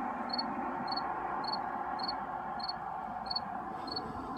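Railroad grade-crossing bell ringing steadily, a little under two strokes a second, warning of an approaching train.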